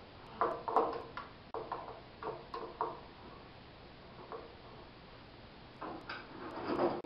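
Irregular light clicks, knocks and rattles of metal parts being handled and adjusted on a shop-built drum sander mounted on a Shopsmith, with the machine switched off. There is a cluster of clicks in the first three seconds and another near the end.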